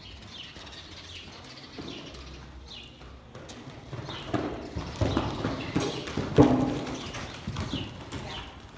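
Horse's hoofbeats cantering on soft dirt arena footing, growing heavier from about four seconds in, with the loudest thud a little past six seconds as the horse jumps a fence and lands.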